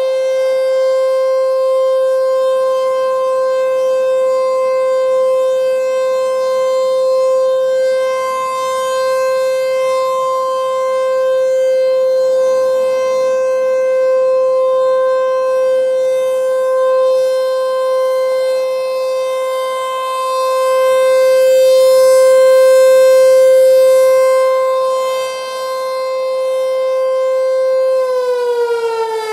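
ASC T-128 electromechanical outdoor warning siren sounding the steady alert tone on its test, a single held pitch rich in overtones. It grows louder for a few seconds near the end, then about a second before the end it starts to wind down, the pitch falling.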